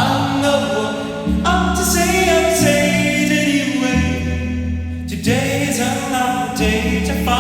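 Music with singing voices over a bass line that changes note about every second and a half.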